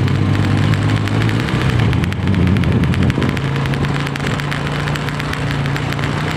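Motorcycle engine running while riding along at steady speed, with a rapid crackle of ticks over the engine note.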